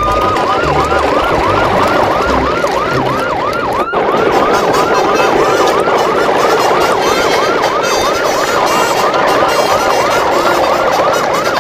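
Siren in a fast yelp, its pitch sweeping up and down about two and a half times a second, over a steady hiss. It breaks off for an instant about four seconds in.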